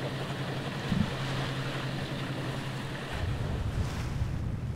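Wind and sea washing past a sailing yacht under way, over a steady low drone. About three seconds in the drone gives way to an uneven low rumble of wind on the microphone.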